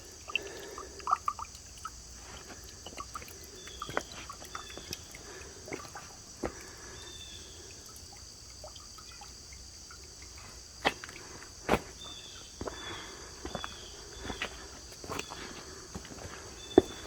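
Water drops falling one at a time onto rock at a dried-up waterfall, sharp irregular plinks a second or several apart, over a steady background of insects chirring. The drips are all that is left of the falls in a drought.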